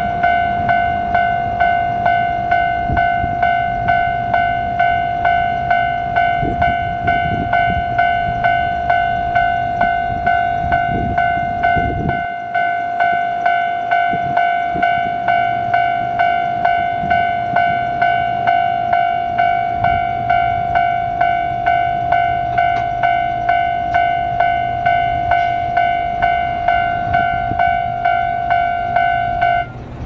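Japanese level-crossing warning alarm ringing steadily, a single repeated ding about one and a half times a second, with a low rumble beneath it for the first twelve seconds or so. The alarm cuts off just before the end, the signal that the crossing is about to clear.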